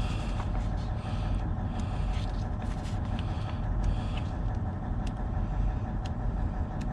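Steady low hum of an idling truck engine, with a few light clicks and rustles of handling.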